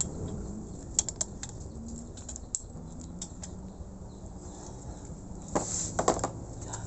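Intermittent light clicks and knocks of metal parts and hand tools being handled while an air-compressor head is reassembled, over a low steady hum. Single sharp clicks come about a second in and at about two and a half seconds, with a quick cluster of knocks near six seconds.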